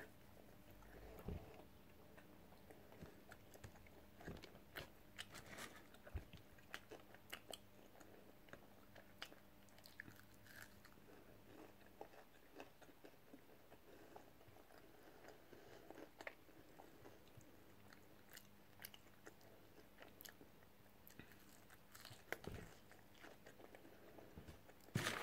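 Faint chewing and biting of a McDonald's breakfast sandwich and hash brown, heard as scattered short mouth clicks and small crunches.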